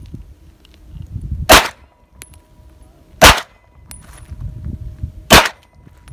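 Three pistol shots about two seconds apart, each a sharp crack. Faint ringing from struck steel target plates lingers after them.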